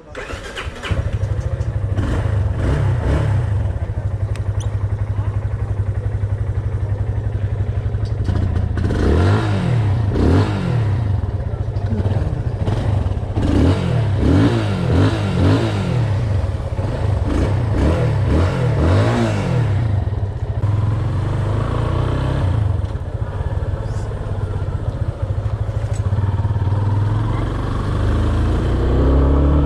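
Motorcycle engine coming in loud about a second in and running, with the pitch rising and falling again and again through the middle as it is revved up and eased off.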